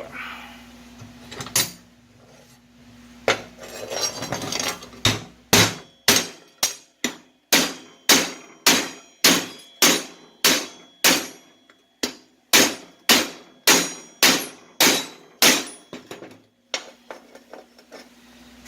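Hand hammer striking steel flat stock, a steady run of about twenty ringing blows at roughly two a second with a brief pause partway, then a few lighter taps near the end.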